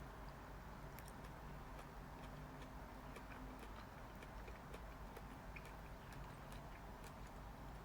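Quiet room tone with faint, irregularly spaced small ticks and clicks.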